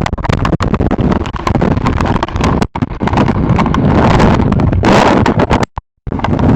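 Hailstones pelting down: a dense, loud rush of countless small impacts, cutting out briefly twice.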